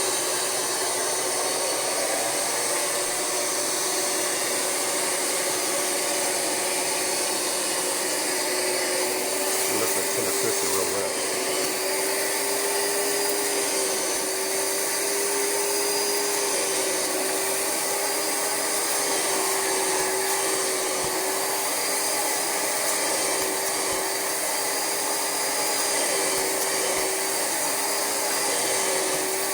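Rug Doctor carpet cleaner's suction motor running steadily with a constant whine, drawing cleaning solution back out of couch upholstery through its hand tool.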